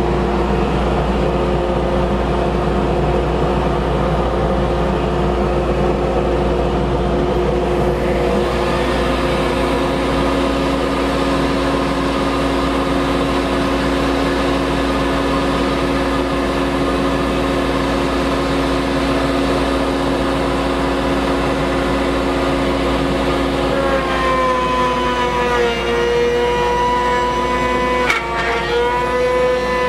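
Table-mounted wood router running steadily at speed. About 24 seconds in, its pitch drops slightly and a higher whine joins as the bit cuts into a wooden pen-case blank, the final pass routing the pen-bed channel; near the end there is a click and a second brief dip in pitch.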